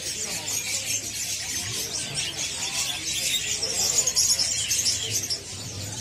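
Many caged songbirds chirping and calling over one another in a continuous high-pitched chatter.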